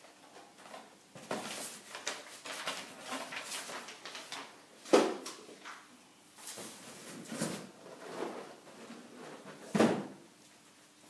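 Packaging being handled and rustled in irregular crinkling bursts. There are two sharper knocks, about five seconds in and again near the end.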